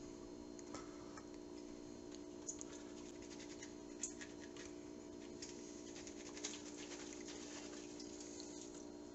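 Quiet kitchen room tone with a steady low hum, broken by faint scattered taps and a light patter of water draining from salted cucumber slices in a colander at the sink.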